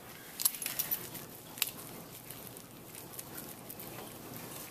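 Gloved fingers pulling apart the muscles of a dissected cat's leg, giving a quick cluster of faint sticky clicks and crackles from about half a second to under two seconds in, then only faint handling noise.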